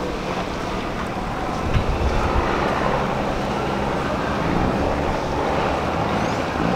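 Small boat's engine running steadily, a low hum.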